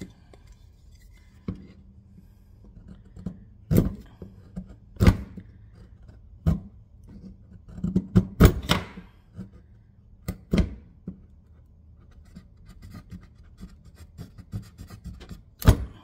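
Short, sharp cuts and knocks, about ten of them at irregular intervals, from a Leatherman multitool blade carving a piece of wood.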